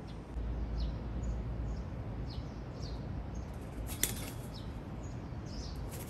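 Short, high chirps of small birds every half second to a second over a steady low background rumble. A sharp crack comes about four seconds in, and a dove's wings flap as it lands near the end.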